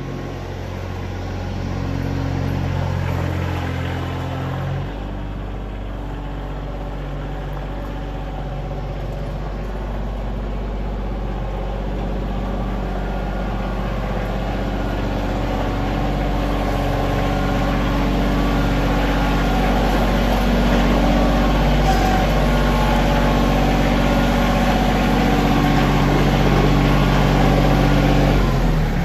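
Compact loader tractor's engine running as the tractor drives up and pulls into a shop, growing steadily louder as it comes close.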